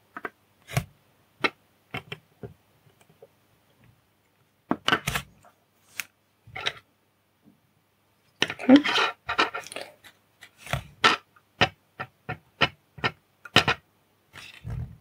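Sharp clicks and taps of a small circuit board, tweezers and soldering tools being handled on a hard desk top, scattered at first, a busier clatter about two-thirds of the way through, then a run of crisp taps about three a second.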